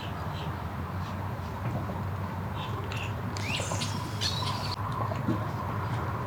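Birds calling with a few short squawks and chirps, bunched together a little past halfway, over a steady low rumble.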